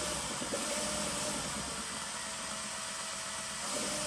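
Electric drill driving a paddle mixer, running steadily as it stirs catalyzed primer in the can.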